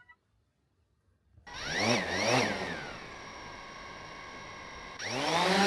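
DJI Mavic 3 Pro drone's electric motors and propellers starting up: about a second and a half in they rev up and down twice quickly, then settle into a steady whine at idle, and near the end the whine rises again as the motors spool up.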